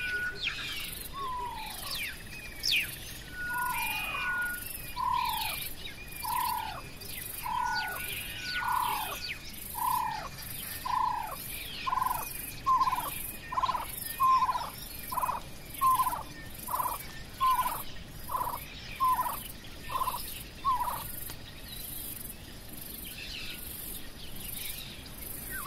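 Wild bird calling a long series of short, downward-slurred notes that come faster and faster, then stop about 21 seconds in, with other birds chirping higher. Insects pulse steadily at a high pitch throughout.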